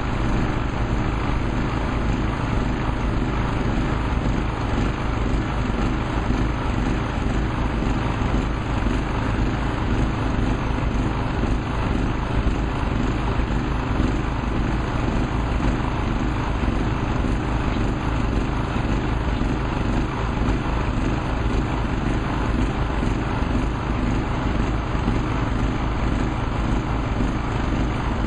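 Small vibratory pile hammer running steadily, vibrating a vinyl sheet pile down into the ground, a loud unbroken mechanical drone with a deep hum.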